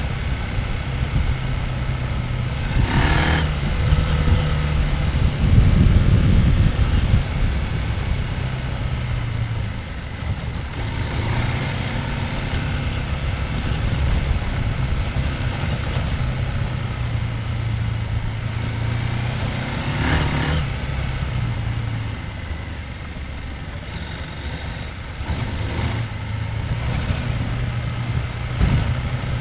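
Husqvarna Norden 901's parallel-twin engine running at low revs on a dirt track, getting louder with more throttle for a few seconds about five seconds in. Two brief knocks come through, one about three seconds in and one about twenty seconds in.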